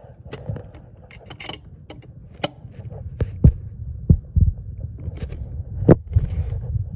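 Hands working on a ceiling fan's motor housing: scattered clicks and knocks of plastic and metal parts and screws, with several dull thumps.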